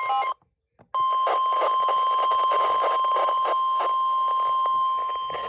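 Weather radio alarm: short pulsed beeps stop, and after a brief dropout a steady single-pitch warning alarm tone near 1 kHz (the 1050 Hz alert tone) sounds for about four and a half seconds, with irregular knocks underneath. The tone signals that a warning message follows, here a tornado warning.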